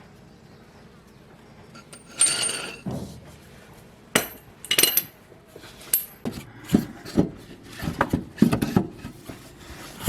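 Metal hand tools clanking against a steel mower blade and deck while a blade bolt is worked loose with a breaker bar. There is a ringing metallic clank about two seconds in, then a string of sharp metal knocks and clinks.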